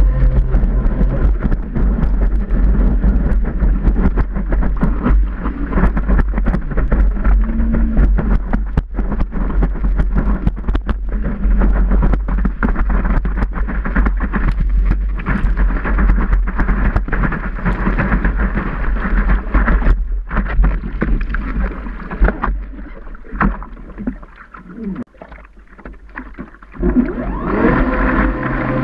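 Water rushing and spraying around a surfboard's nose as it rides a wave, with heavy wind buffeting on the board-mounted camera's microphone. The noise drops for a few seconds near the end, then comes back with a steadier tone.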